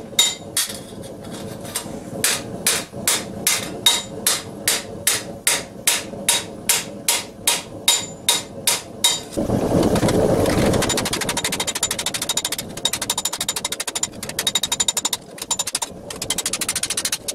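A hammer striking a steel gauntlet plate over the horn of an anvil, about three even blows a second, each with a bright metallic ring, as the steel is shaped hot. The hammering stops about nine seconds in; a brief rushing noise follows, then a quieter, fast rattle.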